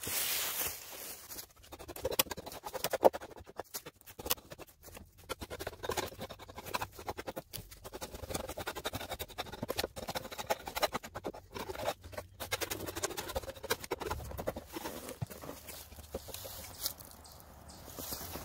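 Irregular light scrapes, rustles and taps: footsteps in dry fallen leaves and hands working over a freshly chainsaw-milled fir post. No engine is running.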